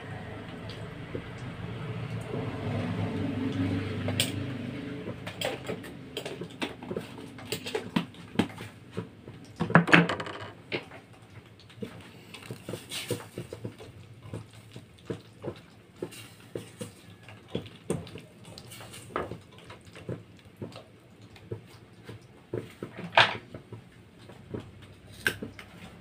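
Spatula scraping and knocking against a stainless steel wok while vegetables are stir-fried: many uneven clatters, the loudest about ten seconds in and again near the end. A steady rumbling noise fills the first few seconds.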